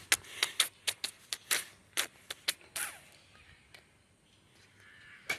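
A quick, irregular run of about ten sharp clicks or taps over about three seconds, then quiet, with one more click near the end.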